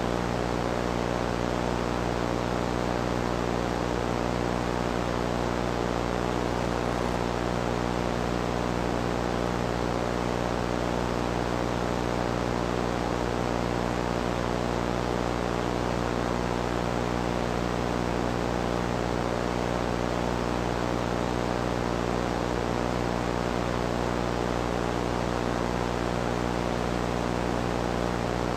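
Steady TV static hiss, with a low electrical hum and its overtones underneath.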